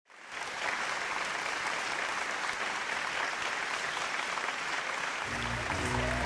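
Audience applauding steadily, fading in at the start. About five seconds in, music starts under the applause with low bass notes and a held higher tone.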